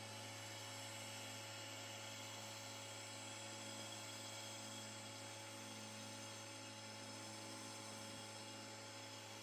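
CNC milling spindle running steadily while its long cutter mills a foam block: a constant low hum with several faint steady high tones over a soft hiss.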